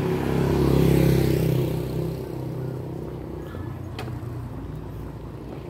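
Small motorcycle riding past close by: its engine swells about a second in, then fades away.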